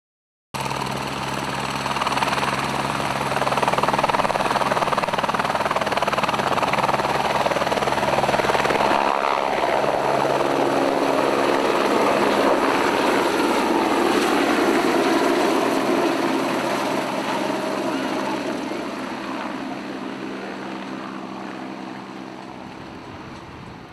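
Rescue helicopter's turbine engine and rotor blades running loud as it passes low overhead, with a shift in pitch about nine seconds in, then fading steadily over the last several seconds as it flies away.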